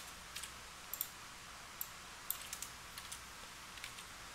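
Faint computer keyboard keystrokes: a dozen or so short, irregular taps as code is edited.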